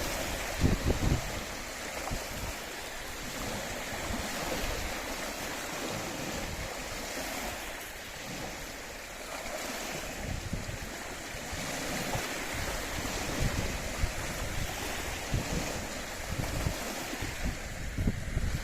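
Small waves on a lake washing steadily in the wind, with gusts buffeting the microphone about a second in and near the end.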